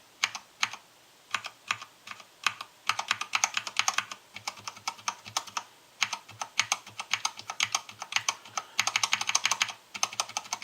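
Keys of a Cherry MX mechanical keyboard being pressed, some fitted with silicone o-rings to damp the keycap striking the switch housing and some without. A few single clicks come first, then several quick flurries of keystrokes with short pauses between them.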